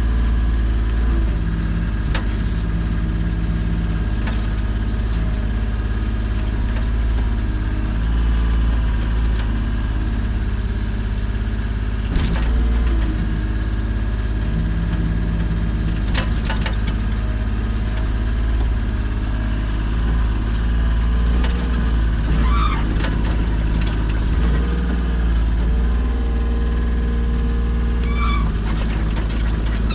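Volvo EC25 mini excavator working, its diesel engine running steadily with a hydraulic drone that shifts pitch every few seconds as the boom and bucket move. A few short knocks and clanks are heard, several seconds apart.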